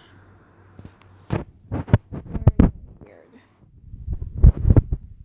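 A run of sharp knocks and thumps in two bunches, one starting about a second in and another near the end.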